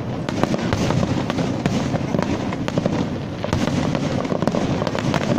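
Aerial fireworks bursting: a dense, continuous run of bangs and crackles, many overlapping pops each second.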